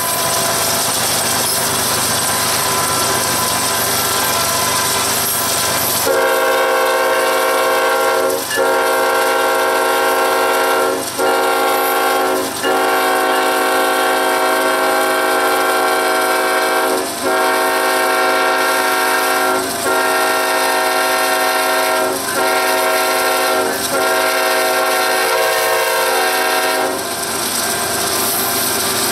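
Kansas City Southern diesel locomotive's K5-series five-chime air horn sounding a long string of loud blasts for about twenty seconds, each cut by only a brief gap. A steady rushing noise of the moving train comes before the horn and returns after it.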